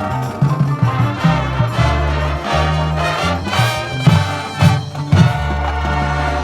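Marching band playing a brass-led passage, with held low brass notes and a few sharp accents about halfway through.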